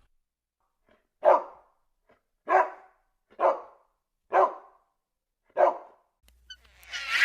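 A dog barking five times, one short bark roughly every second.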